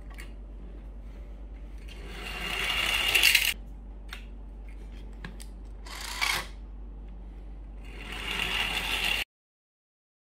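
Small battery-powered wooden toy train with plastic wheels running on a tabletop, with light clicks of handling; three bursts of whirring noise, the first building up about two seconds in, a short one near six seconds, and another near eight seconds. The sound cuts off suddenly a little before the end.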